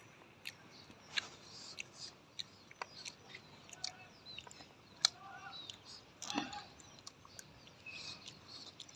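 Quiet eating sounds: chewing with many short wet clicks and smacks. Short bird chirps come in the background, a few times.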